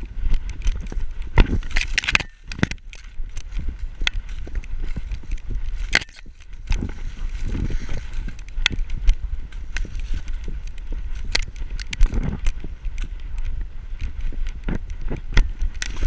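Camera on a running dog's back: irregular knocks and thumps from its footfalls in snow and the jostled mount, with dry corn stalks and leaves brushing and crackling against it, over a steady low rumble.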